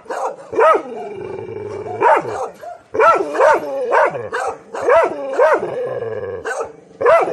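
A six-month-old Taiwan dog (Formosan mountain dog) barking at a stranger in single barks, about ten in all, as an alert and guarding bark. Between the barks it holds a steady growl.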